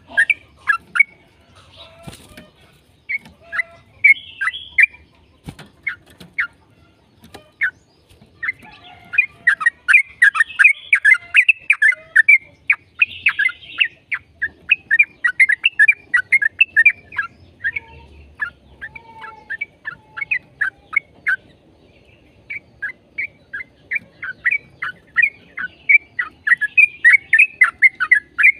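Yellow-vented bulbul (trucukan) singing a long, rapid chattering song of short, quick notes, in bouts broken by short pauses. This is the 'ropel' song used as a lure to set other bulbuls singing.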